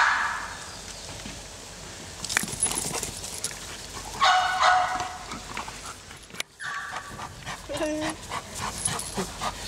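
A mine detection dog whining and yelping a few times, the longest call a little over four seconds in, with scattered clicks between.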